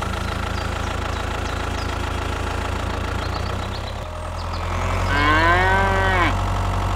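A cow moos once, a long call rising then falling in pitch, about five seconds in. Under it runs a steady low engine hum.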